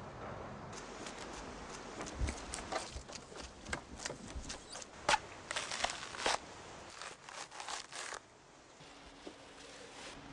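A coconut being husked on a sharpened stake: an irregular run of sharp cracks and tearing as the fibrous husk is pried apart. It stops about eight seconds in.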